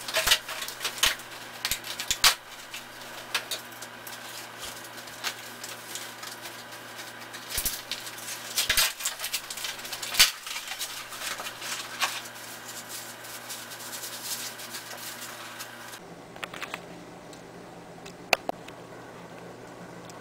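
Irregular crinkling, rustling and sharp clicks of paper packaging, a cardboard box and thin wood veneer sheets being handled and unpacked, over a low steady hum. After about sixteen seconds it goes quieter, with only a few clicks.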